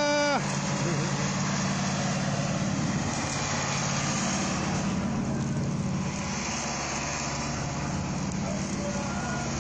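A motor vehicle's engine running steadily with a low hum, amid traffic and outdoor noise. A short musical tone cuts off in the first half-second.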